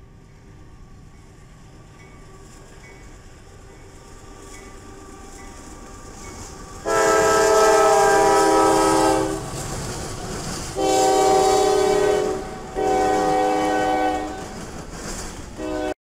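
A CSX freight locomotive's multi-chime air horn sounds three long blasts, starting about seven seconds in, with a short blast beginning right at the end. Beneath it runs the rumble of the approaching freight train, which grows louder before the horn starts.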